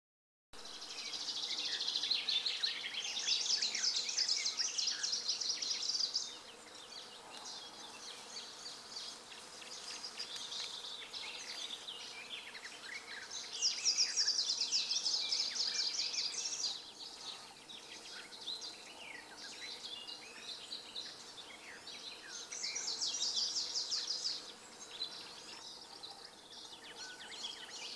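Greenish warbler singing: three loud phrases of fast, high, rapidly repeated notes, the first about six seconds long and the next two shorter, with fainter chirps in between.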